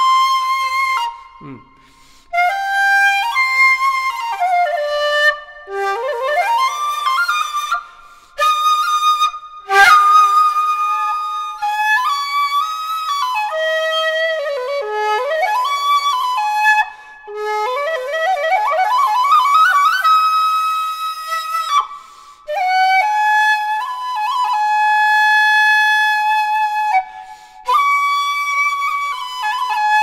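Short bamboo shakuhachi played solo: slow melodic phrases with several rising pitch glides between notes, broken by short pauses. Near ten seconds in there is a brief click where the playing moves from the 1.3 to the shorter 1.2 flute.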